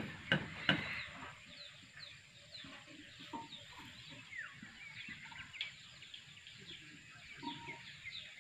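Morning birdsong: many short, high chirps from small birds, going on throughout, with chickens clucking now and then. A few sharp knocks in the first second.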